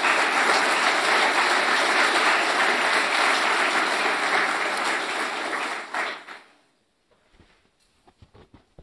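Audience applauding, a dense steady clapping that fades out about six and a half seconds in, leaving a few faint rustles and clicks.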